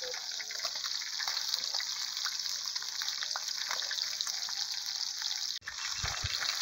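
Pieces of fish frying in hot oil in a steel disc pan over a wood fire: a steady sizzle with small scattered crackles.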